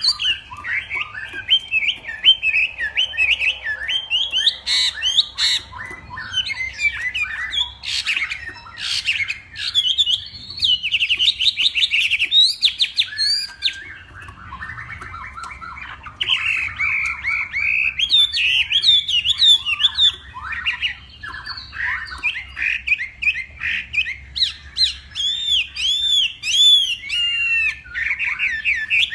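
Chinese hwamei (hoạ mi) singing a long, varied song of rapid whistled phrases, trills and quickly repeated notes, with a brief lull about halfway through and a run of repeated rising-and-falling notes near the end.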